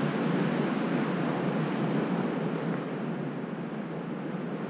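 Ocean surf breaking and washing up the beach in a steady rush, a little louder in the first couple of seconds, then easing.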